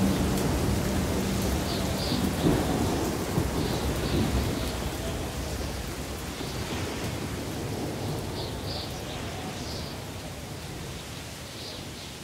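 Thunderstorm soundscape: steady rain with low rolling thunder, slowly fading out.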